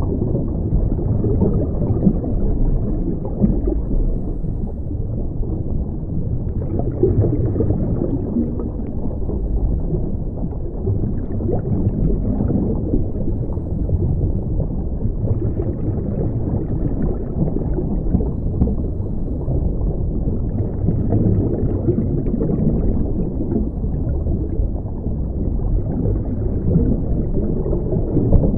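Underwater sound heard through a camera's waterproof housing: a steady muffled rumble, with a gurgling burst of a scuba diver's exhaled regulator bubbles every four to five seconds.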